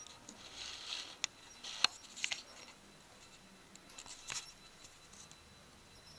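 Faint handling noise from a handheld camera as it is moved: scattered light clicks, about four of them, with soft rustling between, in a small room.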